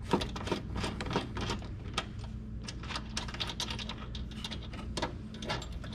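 Many irregular small metallic clicks and taps as a screwdriver works loose the bolts on a welder's bus bar, over a steady low hum.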